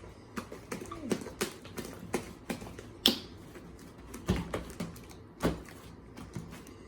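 Sticky glue-and-shaving-cream slime being kneaded and stretched by hand, giving irregular wet clicks and pops, with a few louder pops.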